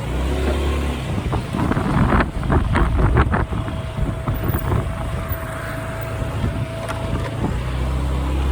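Motorcycle engine running as the bike sets off, with heavy wind buffeting the microphone in typhoon winds.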